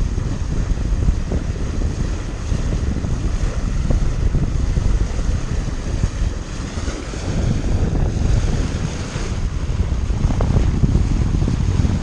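Wind buffeting the microphone on a sailboat under way, over a steady rush of sea water.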